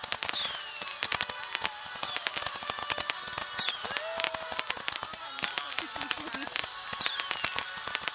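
Consumer fireworks going off in quick succession: five loud whistling shots, one about every second and a half to two seconds, each whistle falling in pitch as it fades, over a dense run of sharp crackling pops.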